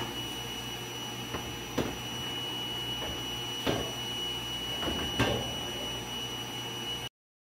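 Large heat-transfer film printer running, a steady mechanical hum with a thin high whine, with a few short clicks and knocks as the printed transfer film feeds out over its roller. The sound cuts off suddenly near the end.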